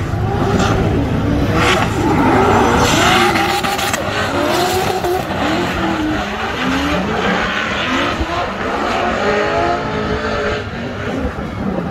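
Drift car engine revving hard, its pitch rising and falling over and over as the throttle is worked, with tyres squealing as the car slides sideways.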